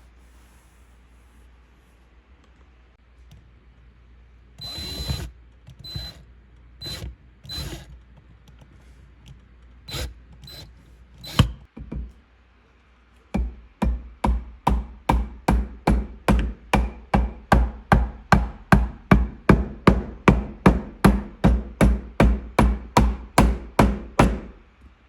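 Sharp knocks from tool work on the bench: a few scattered hits, then a long steady run of strikes at about two or three a second.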